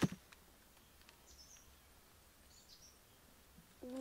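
A single dull thud as a green coconut is put down on the ground. Faint high bird chirps come twice over a quiet forest background, and a short hummed vocal sound follows just before the end.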